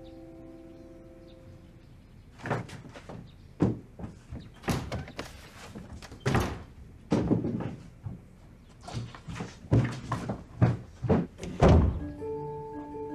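A dozen or so irregular thuds and scuffs of boots stepping and climbing. Soft music fades out at the start, and a mallet-instrument tune comes in near the end.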